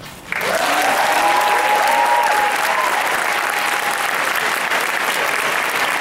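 Audience applause breaking out suddenly just after the choir's final note fades, with cheering voices over the clapping in the first couple of seconds.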